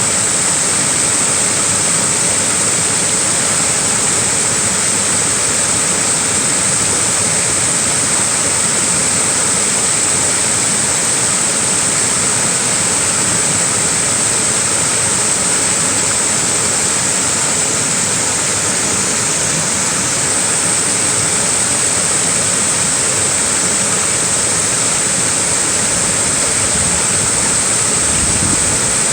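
Small waterfall pouring steadily, a constant rushing hiss of falling water with no breaks.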